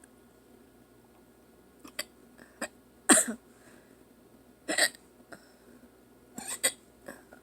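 A person hiccuping several times at irregular intervals, the loudest hiccup about three seconds in. The hiccups were brought on by eating very spicy chips.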